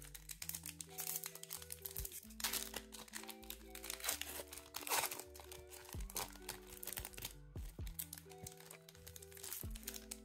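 A foil trading-card pack crinkling as it is handled and torn open, the crackling thickest from about two to seven seconds in and loudest near the middle, over background music.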